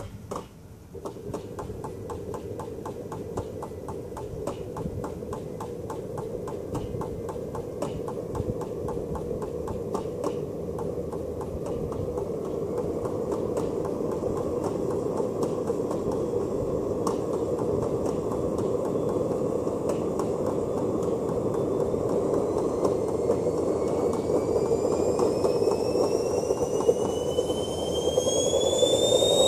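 JetCat PHT2 model helicopter turbine starting up: a steady rushing hum, with rapid ticking early on, grows slowly louder. Over the last several seconds a whine rises steadily in pitch as the turbine spools up.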